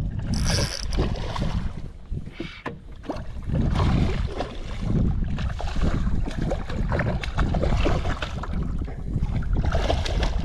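Wind buffeting the microphone while a hooked redfish is reeled in on a spinning reel, with the fish splashing at the surface near the end.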